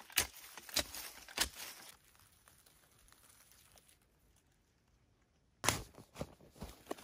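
Small shovel digging into soil and dry leaf litter: a few sharp scraping strokes, then a quiet stretch, then more strokes of the blade into earth near the end.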